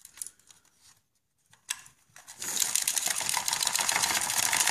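A few faint clicks, then about halfway through a dense, fast rattling and scraping of hands working wires and connectors loose from an RC car's plastic chassis.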